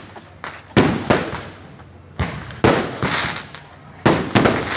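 Fireworks exploding overhead: a string of sharp bangs, about seven in under five seconds, each fading away in a rumbling echo.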